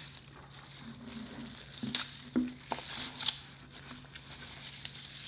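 Plastic takeout packaging crinkling and rustling as a dessert container is opened and handled, with a few sharp clicks from about two seconds in.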